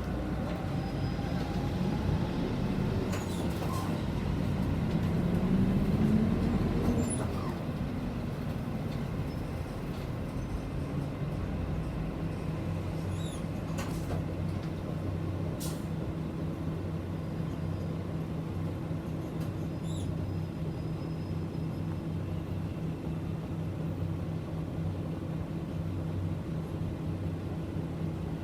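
City bus diesel engine heard from inside the cabin, its pitch rising to a peak about six seconds in as the bus pulls away, then falling back. After that it runs steadily with a low hum.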